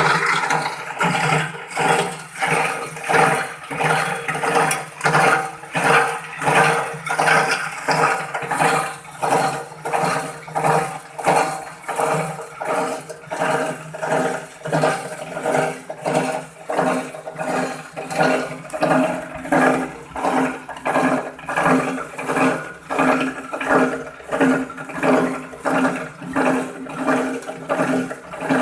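Plastic-recycling grinding machine running, a loud rushing, churning noise that pulses evenly about one and a half times a second.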